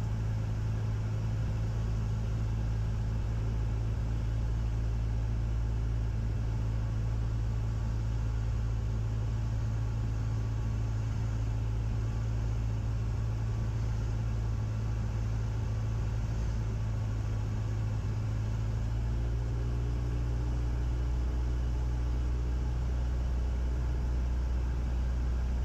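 Cessna 172's piston engine and propeller droning steadily inside the cabin at reduced power, about 1500 rpm, for the descent to landing. The tone of the drone shifts about three-quarters of the way through.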